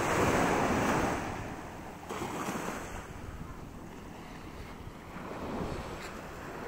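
Small waves washing up on a sandy beach, with wind buffeting the microphone. The surf swells loudest in the first second, then falls back to a steady hiss with smaller surges.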